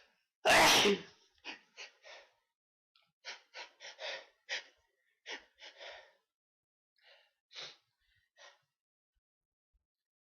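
A person sneezes once, loudly, about half a second in, then takes a dozen or so short, quick breaths that thin out toward the end: part of a sneezing fit.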